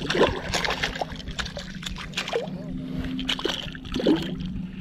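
Speckled trout thrashing in a landing net at the water's surface: a run of irregular splashes, with water sloshing and dripping as a hand works the fish in the net.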